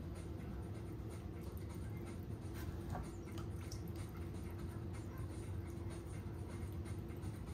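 Electric pottery wheel running with a steady hum, with faint scratching and rubbing of clay and tools against the spinning piece.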